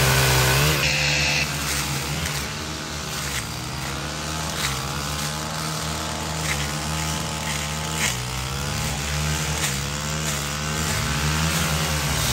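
Two-stroke gas saw running and cutting limbs and brush, its engine note rising and falling every second or two as it revs into cuts, loudest in the first second or so.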